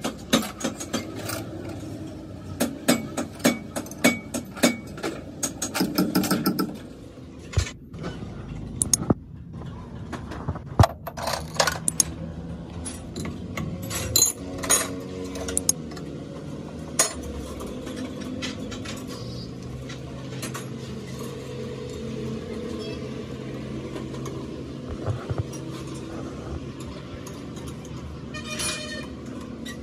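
Metal clinks and clicks of pipe fittings and wrenches as high-pressure lines are fitted to a fuel injection pump on a test bench, rapid for the first several seconds, then scattered, over a low steady hum.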